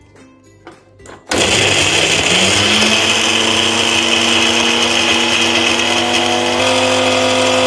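Electric mixer grinder switching on about a second in and running loud, its motor rising in pitch for a second or two and then holding steady as it grinds soaked red chillies, garlic and ginger into a wet paste. A few light knocks of the lid being handled come just before it starts.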